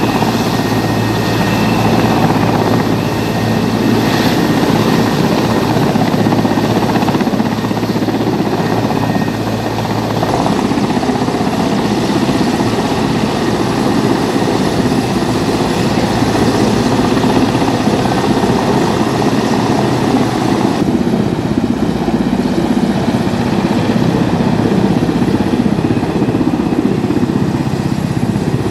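Army transport helicopter hovering low and manoeuvring over a wet cricket field, with steady, loud rotor and turbine noise as its downwash blows the grass to dry it. The sound shifts in tone about ten seconds in and again around twenty seconds in.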